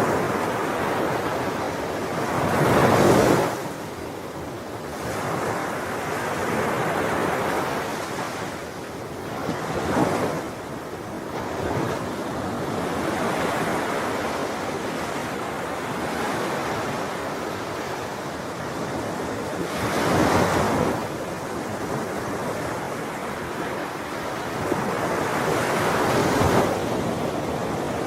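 Sea waves washing onto a shore: a steady roar of surf, with louder breakers swelling and falling away about three seconds in, around ten seconds, around twenty seconds and again near the end.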